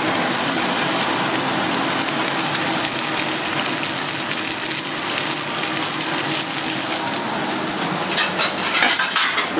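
Tuna steak sizzling in hot oil in a frying pan: a steady, loud hiss. The oil is hot enough to sizzle as the fish hits it but not smoking, as the cook wants it for searing.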